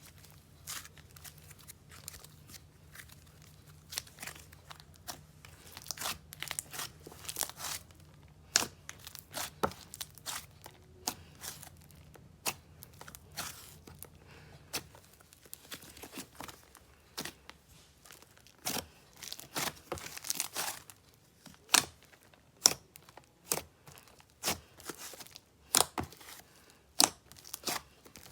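Slime being squished, stretched and poked by hand, making irregular sticky crackles and pops. A low hum runs underneath for the first half and stops about fifteen seconds in.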